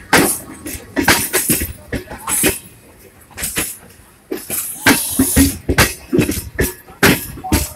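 Passenger coach wheels rolling over rail joints and points, giving irregular metallic clanks and knocks. There is a quieter gap about three to four seconds in, then strong strikes again.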